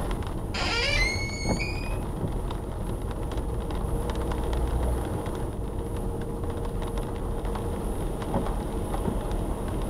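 Car moving slowly on a wet road, heard from inside the cabin: steady engine and tyre noise, with a short squeal rising in pitch about half a second in.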